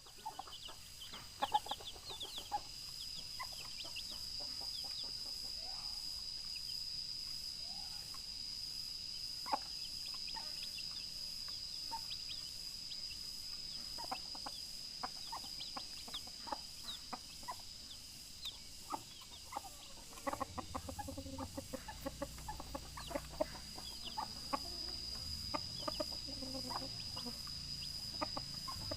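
Rooster clucking in short, repeated calls to summon hens, with other chicken sounds; the calls grow busier about two-thirds of the way through. A steady high-pitched tone runs underneath.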